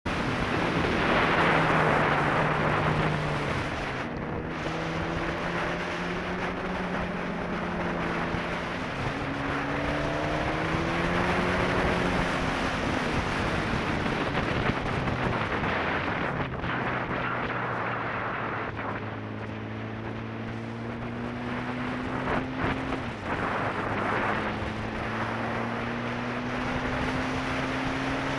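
Sport bike engine running at road speed, its pitch climbing and dropping several times with throttle and gear changes, under heavy wind rush on the microphone.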